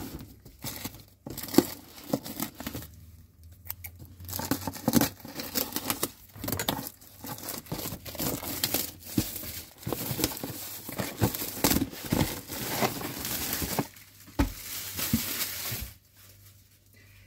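Plastic shrink wrap cut with scissors and torn off a cardboard box, with dense crinkling and crackling and sharp clicks, going quiet near the end.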